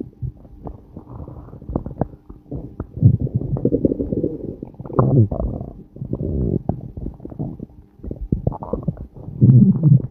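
A person's stomach growling: an irregular run of gurgles and rumbles with quick clicks, swelling and fading, loudest about three seconds in, around five seconds, and again near the end.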